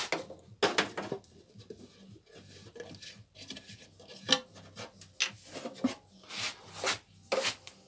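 Containers handled on a workbench: a string of separate light knocks and clacks with faint rubbing between them, as a tin of paint thinner and a small plastic measuring bottle are picked up and set down and a red plastic cap is taken off.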